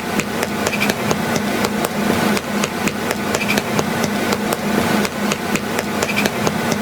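Rapid, repeated sharp knocks like hammering, several a second, over a steady low hum.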